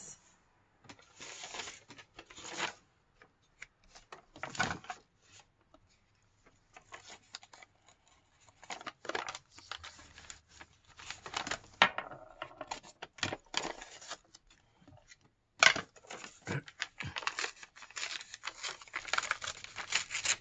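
Sheets of paper being handled on a craft desk: irregular rustling and crinkling in short bursts, with a few sharp taps.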